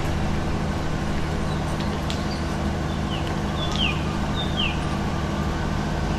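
A steady, low engine hum, with a few short, falling bird chirps a little after halfway.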